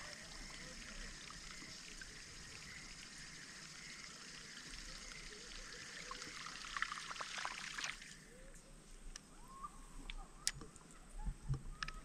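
Faint river ambience of water trickling around the kayak, with a steady high hiss that stops about two-thirds of the way through. A few faint chirps sound over it, and a couple of sharp clicks come near the end.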